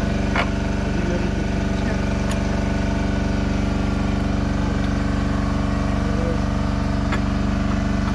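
Engine running at a steady, even speed throughout, with a few light clicks over it.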